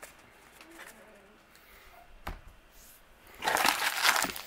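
Plastic wrapper of a 2019 Bowman Jumbo baseball-card pack crinkling loudly as it is picked up and handled, starting a little over three seconds in after a quiet stretch with a single click.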